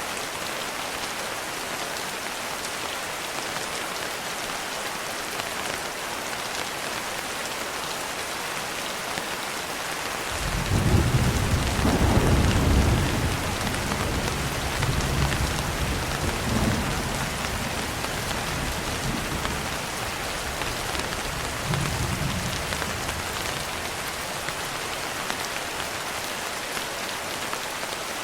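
Steady rain falling, with a roll of thunder starting about ten seconds in. The thunder is a sudden deep rumble, loudest for the first couple of seconds, then rolls on in weaker swells and dies away over about ten more seconds.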